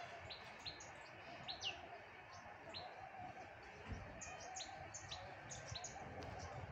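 Small birds chirping: many short, high, falling chirps, scattered and irregular, over a faint background hiss.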